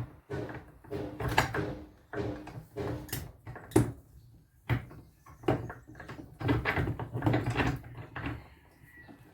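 Irregular knocks, clinks and scraping of hand tools working on the stator of an old washing-machine motor while the copper windings are pulled out.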